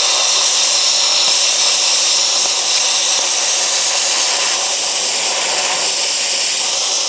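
Compressed-air blow gun hissing steadily as its jet is played over a car door's paint, blowing off loose, flaking paint.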